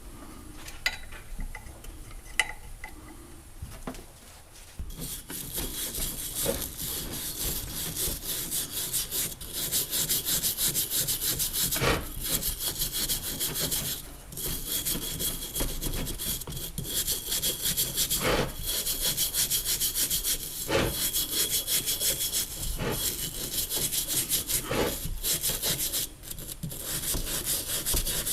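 A few light clicks, then, about five seconds in, fast rhythmic rasping as something is rubbed or scraped by hand. It goes on with two short pauses.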